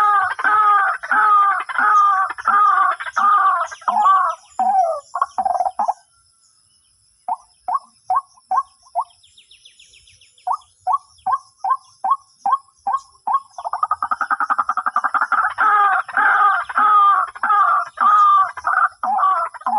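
White-breasted waterhen calling: a loud run of repeated croaking notes, about two a second, that breaks off about six seconds in, continues as shorter, sparser notes, and swells back into a dense run of calls near the end.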